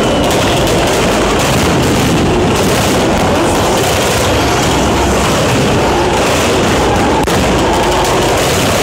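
Drift cars' engines revving hard, their pitch rising and falling, inside a continuous loud wash of engine and tyre noise.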